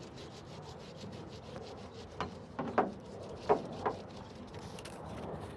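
Rubbing and scraping as trim material is worked into place by hand: a quick run of faint scratchy strokes, then several short, sharp squeaks or clicks about two to four seconds in.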